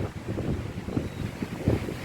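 Wind blowing in gusts and buffeting the microphone with a low rumble over a faint hiss, with a brief stronger gust near the end.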